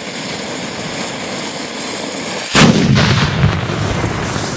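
Homemade potassium nitrate–sugar rocket motor hissing steadily as it burns. About two and a half seconds in, its casing bursts in a single loud explosion, and a low rumble trails off over the next second or so.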